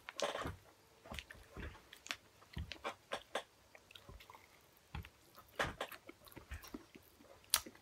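Faint chewing of a mouthful of sour Pop Rocks candy, with irregular soft clicks and crackles and a sharper click near the end.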